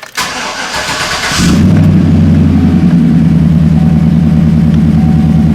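2012 GMC Sierra's 5.3-litre V8 cranked by the starter for about a second and a half, then catching and settling into a steady idle: the first start after a new tune has been loaded to the engine computer.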